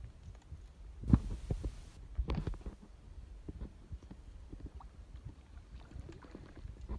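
Low thumps and knocks of handling aboard a small fishing boat over a steady low rumble. The loudest thump comes about a second in, with a few more a little after two seconds and lighter ticks after that.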